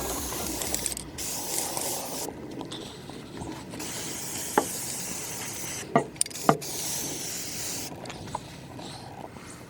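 Aerosol can of gloss spray paint hissing in short bursts of a second or two, with pauses between them, as a base coat goes on a wooden desk. A few sharp clicks sound near the middle.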